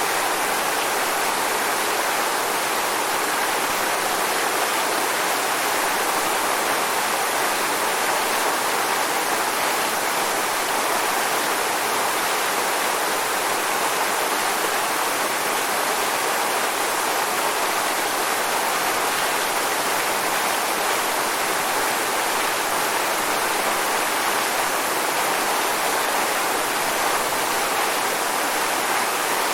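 Waterfall: water pouring and splashing in a steady rush, with no other sounds standing out.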